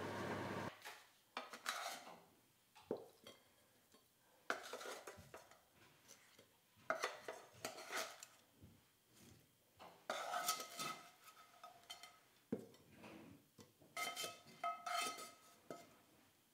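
A blender motor running steadily cuts off just under a second in. Then a spoon clinks and scrapes against a dish, in irregular clinks, some of them ringing briefly.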